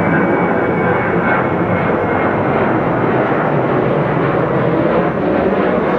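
Boeing 737 jet airliner climbing out after takeoff, its turbofan engines at climb power: a loud, steady rumbling roar.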